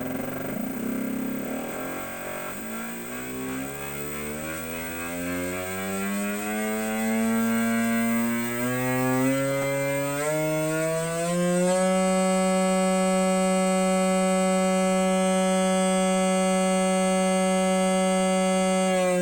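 E-bike sound-effect speaker playing a simulated big-bike engine: a start-up rumble, then the engine note climbing steadily in pitch as if revving for about ten seconds, then holding at a high, steady pitch.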